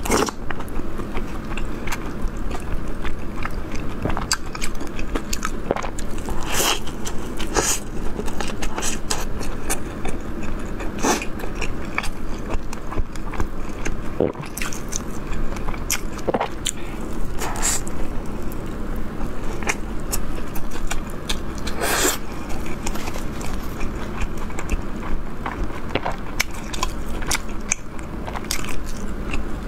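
A person chewing and biting into a crisp sesame flatbread stuffed with meat (Beijing shaobing jia rou). There is steady wet chewing, broken by irregular crunches and several louder, crisp bites spread through.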